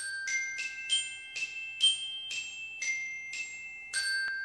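Short intro jingle of bright, bell-like mallet notes in the manner of a glockenspiel: a run of about ten struck notes, roughly two a second, each ringing on. The last note, about four seconds in, is held and fades away.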